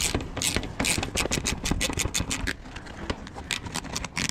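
Ratchet wrench clicking as the 10 mm bolt holding the car's front bumper is undone: a quick run of clicks about a second in, then slower, spaced clicks.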